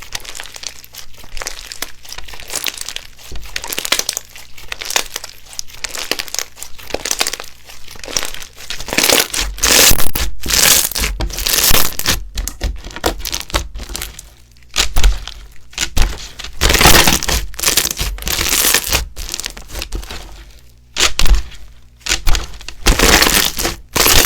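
Slime being squished and pressed by hand, making a dense run of crackling, crunching sounds that grows louder and heavier about halfway through.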